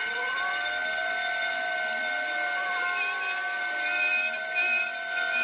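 Foxalien 40x40 XE desktop CNC router running: a steady high spindle whine, with the stepper motors' whir rising and falling in pitch as the axes move.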